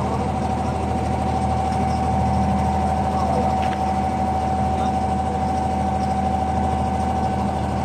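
Inboard engine of a wooden abra water taxi running steadily under way, heard from on board: a constant low drone with a steady whining tone over it.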